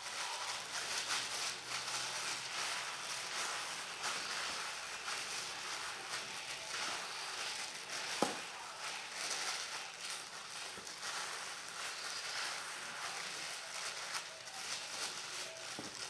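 Clear plastic food-prep glove crinkling and the crumbly butter-and-flour mixture rustling as a hand squeezes and rubs it together in a stainless steel bowl: a steady, scratchy rustle. A single sharp click comes about halfway through.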